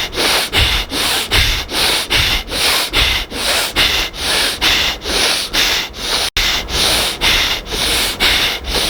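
Rapid, forceful breathing through the nose in bhastrika (bellows breath) pranayama: even, rhythmic breath strokes, roughly two and a half a second, kept up without a break.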